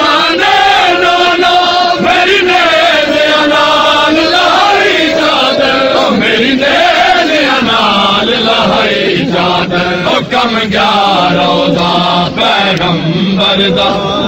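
A group of men loudly chanting a Punjabi noha, a Shia mourning lament, in unison, with long wavering sung notes. Scattered sharp slaps of matam, hands beating on chests, cut through the chant.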